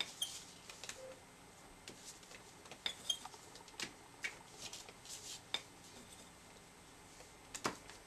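About a dozen light, scattered taps and clicks as a small round stamp is dabbed in paint on a ceramic plate and pressed onto a paper card to print circles.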